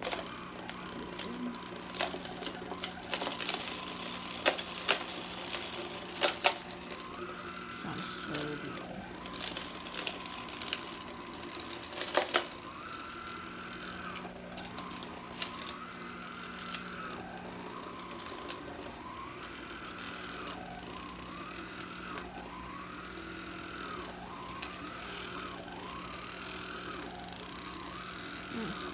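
Black & Decker 4.8 V Dustbuster stick sweeper's small battery motor running with a steady hum as it is pushed over carpet, with sharp clicks and rattles as pennies and rice are sucked up and knock about inside. In the second half a tone rises and falls over and over, about every second and a half: a funky noise.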